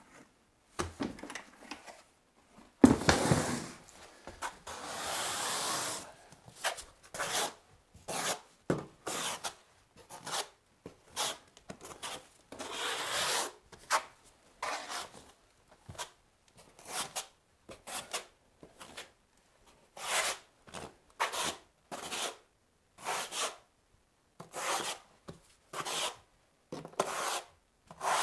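Half-inch square-notch steel trowel scraping and combing modified thinset mortar across a cement floor, in repeated short strokes a little under one a second. A sharp thump about three seconds in, then two longer scrapes.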